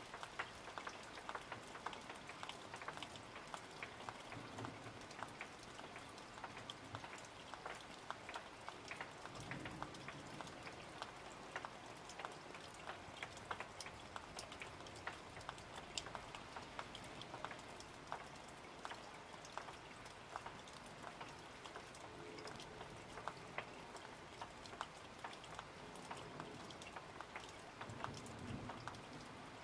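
Summer rain falling steadily, with many separate drop hits heard through a constant hiss, and a brief low rumble near the end.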